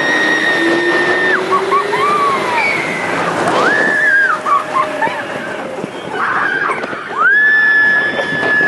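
Riders on the California Screamin' launched roller coaster screaming in long, high, held screams with shorter yelps between, over a steady rush of wind and track noise as the train accelerates out of the launch. A low whine rises in pitch over the first two seconds of the launch.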